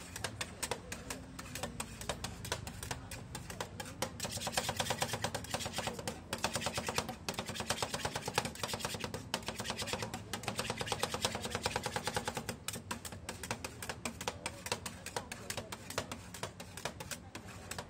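Metal spatulas rapidly chopping on a rolled-ice-cream cold plate: a fast, steady run of sharp clicks, many strokes a second, loudest in the middle.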